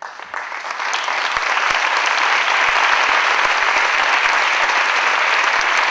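Audience applauding at the end of a live performance. The applause swells over about the first second into dense, steady clapping.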